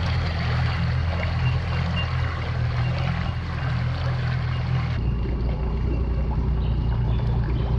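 Outboard motor on a small aluminium boat running steadily as the boat moves off, a low, even hum. About five seconds in it cuts to a different steady low hum.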